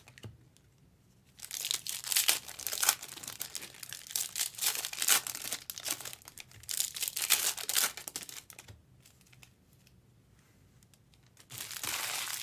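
Plastic wrapping on trading-card boxes or packs crinkling and tearing as it is opened, in irregular spells of rustling with a pause of a few seconds before a last short burst near the end.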